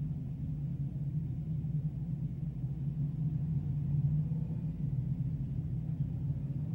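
A field of dirt-track sportsman modifieds with crate V8 engines rumbling steadily at low speed as they pace in line under caution.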